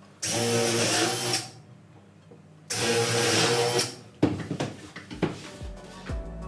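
Cordless drill driving screws down into the floor sheeting: two runs of about a second each, followed by a few light clicks.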